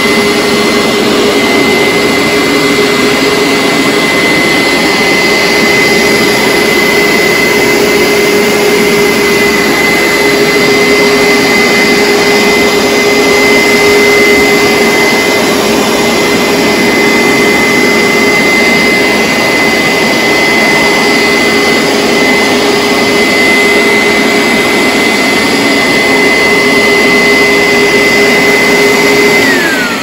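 Hoover SteamVac Dual V upright carpet cleaner running on a rug, a loud steady motor whine with a high tone held throughout. Just before the end the motor is shut off and its pitch falls away.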